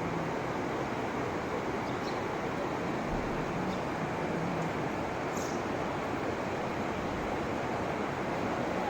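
A steady, unbroken rushing noise with no clear pitch, holding one level throughout.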